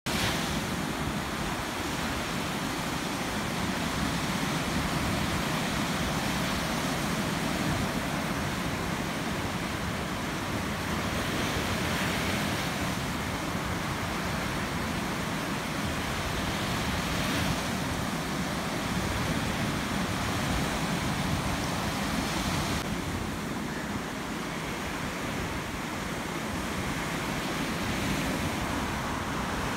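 Small sea waves breaking and washing up a sandy beach: a steady rush of surf that swells a little now and then.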